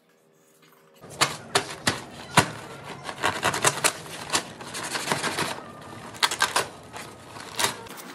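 Plastic sack of powder rustling and crackling as a hand digs into it and scoops powder out: a run of irregular sharp crinkles and clicks that starts about a second in.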